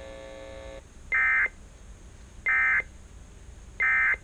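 Emergency Alert System end-of-message code: three short, identical digital data bursts about 1.4 seconds apart, the SAME 'NNNN' signal that closes an alert. Before the first burst, a steady hum cuts off under a second in.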